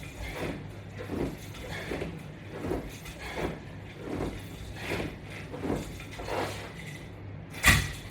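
Rhythmic exertion sounds from repeated sit-up crunches: a short breathy swish about every three-quarters of a second. One sharper, louder puff or knock comes just before the end.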